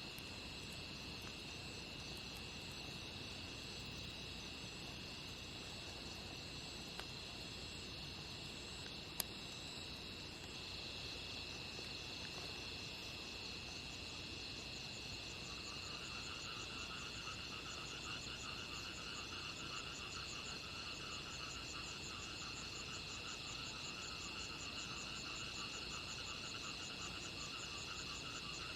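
Chorus of insects, crickets or similar, trilling steadily in several high-pitched, finely pulsed bands. About halfway through a lower pulsing trill joins in. There is a single sharp click about nine seconds in.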